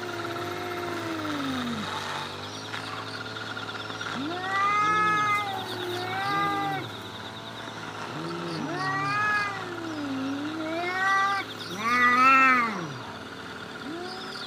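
Two cats, an orange and a grey tabby, in a standoff yowling at each other: a string of long, wavering yowls that rise and fall in pitch, with short pauses between them. This is the threat yowling that comes before a cat fight. The loudest yowl is near the end.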